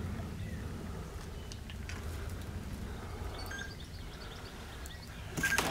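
Outdoor ambience: a steady low rumble, with faint bird chirps about two thirds of the way through and a few louder knocks near the end.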